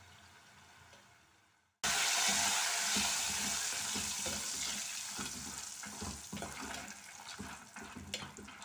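Raw nendran banana slices deep-frying in hot oil in an aluminium pot, stirred with a spoon. It is quiet at first, then about two seconds in a sudden loud sizzle starts and slowly dies down, with crackles and the clatter of stirring. This is the rustling frying sound that marks the chips turning crisp.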